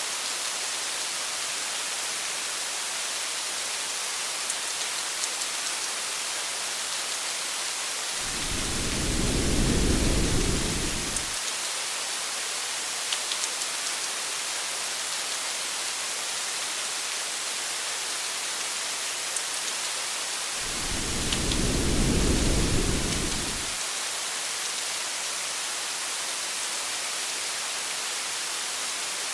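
Steady hiss of rain with scattered faint drop ticks, and two low rumbles of thunder about twelve seconds apart, each lasting about three seconds.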